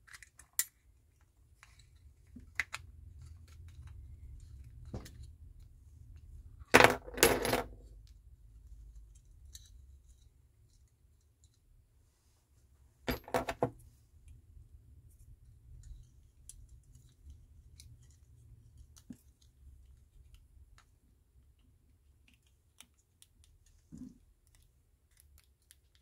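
Plastic shell of a Land Rover remote key being pried apart and handled: scattered small clicks and knocks, with two loud clacks about seven seconds in, another around thirteen seconds, and a faint knock near the end.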